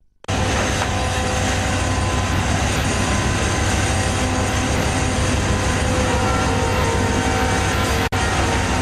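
A purse seiner's engine and deck machinery running with a steady, loud drone and hum, mixed with rushing noise as the purse seine and its float line pay out over the stern. The sound starts suddenly just after the start and drops out for an instant about eight seconds in.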